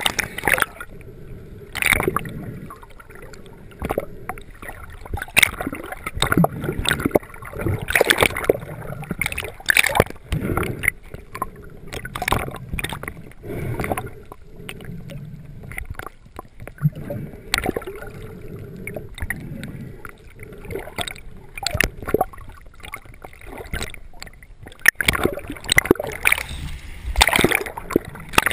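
Water splashing, sloshing and gurgling in irregular bursts, one or two a second, close to a GoPro camera.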